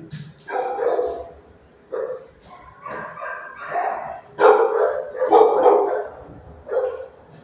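Dogs barking in a shelter kennel block: a run of separate barks, about one a second, loudest from about four and a half to six seconds in.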